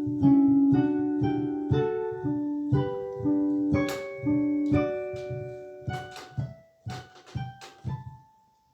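A piano-voiced keyboard playing a short melody note by note, the song's phrase picked out slowly. The early notes ring on; toward the end the notes come shorter and quieter.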